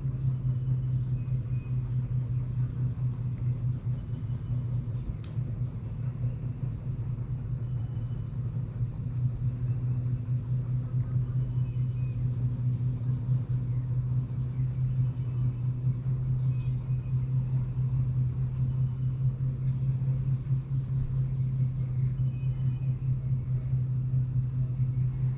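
Spinning fishing reel cranked steadily through a lure retrieve, giving a continuous low whirring hum.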